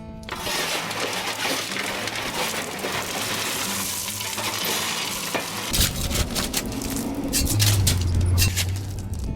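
Blue slate stone sliding out of a dump truck bed: a steady rattling hiss of pouring rock that turns into clattering stones for the last few seconds, with a low hum joining near the end.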